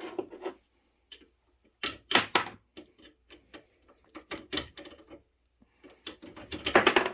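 Irregular clicks and clanks of metal being handled: a steel plate with bolts being turned around on the work surface, with a quicker cluster of knocks near the end.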